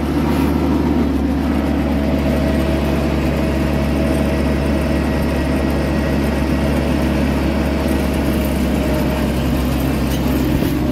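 A homemade mini tractor's four-cylinder, 35 HP diesel engine runs steadily while the tractor drives along the road, getting a little louder right at the start.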